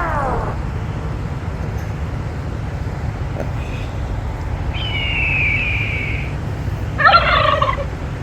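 Steady low rumble of idling trucks, with a falling whistle-like tone about halfway through and a short, loud, harsh call near the end.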